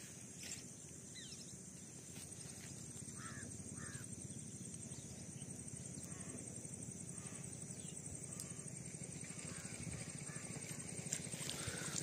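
Quiet outdoor ambience by a pond: two short bird calls about half a second apart a few seconds in, and a few fainter calls, over a steady faint high-pitched drone.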